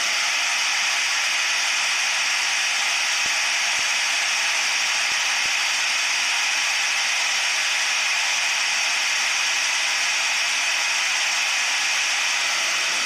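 Handheld electric drill switched on and running steadily at full speed, spinning a small paint-coated circuit board in its chuck to spin the photoresist paint into a thin, even film. It starts abruptly right at the beginning, a steady whirring whine.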